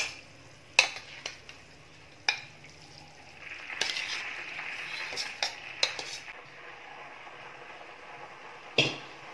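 Soaked basmati rice tipped from a bowl into a pot of boiling water: a hissing splash as the rice goes in, from about three and a half seconds to six and a half seconds in. Around it are sharp clinks of the bowl and a utensil against the pot, and the bubbling of the boiling water.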